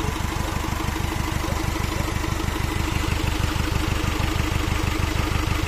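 Turbocharged diesel engine idling steadily with an even, regular beat, running after its turbo has been replaced and its injectors balanced.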